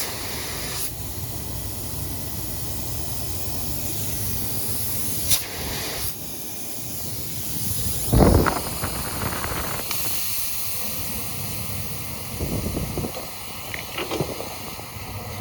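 Pressurized gas hissing out through an air conditioner's refrigerant line as it is flushed, blowing out contaminated residue. The hiss is steady, with a loud gusting burst about halfway through and a few short sputters near the end.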